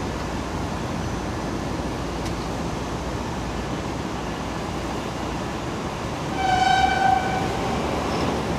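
Steady rumble of a rake of passenger coaches rolling along the tracks. About six seconds in, an arriving CRH1A high-speed EMU sounds one high horn blast, about a second long.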